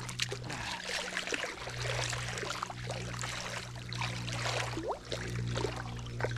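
Water splashing and trickling with repeated scraping and knocking, from digging in a wet, gravelly streambed. A steady low hum runs underneath.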